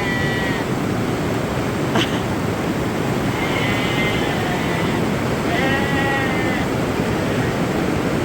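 Weaned lambs bleating: three drawn-out calls, the first trailing off just after the start, the others about three and five and a half seconds in, over a steady rushing noise. A single sharp click about two seconds in.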